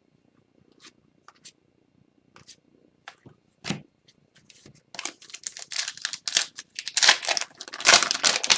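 Trading card pack wrapper being torn open and crinkled, with cards handled. A few light taps and clicks at first, then a loud, dense crinkling rustle starts about five seconds in and grows toward the end.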